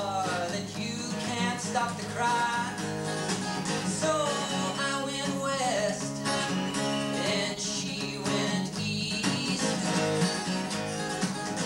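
Steel-string acoustic guitar, strummed and picked steadily as a song accompaniment.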